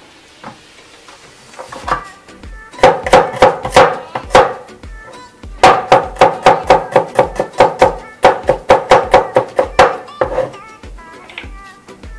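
Large kitchen knife chopping a green chili on a wooden cutting board: quick runs of knocks, about six a second, in three runs with short pauses between.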